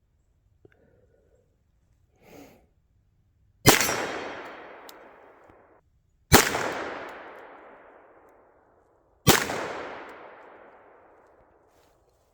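Three pistol shots from a SIG Sauer P226, spaced about two and a half to three seconds apart, each followed by a long echo that dies away.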